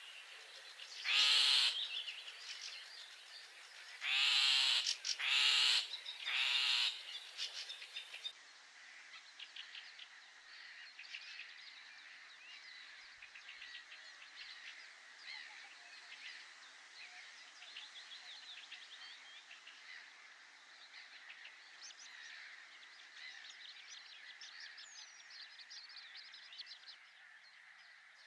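Four loud, pitched animal calls in the first eight seconds, then a dense chorus of many birds chirping over a steady background hiss.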